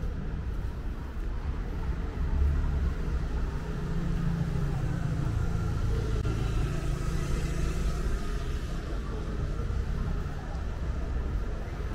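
Street ambience with a steady low rumble. Near the middle a motor scooter passes close by, its engine growing louder and then fading away.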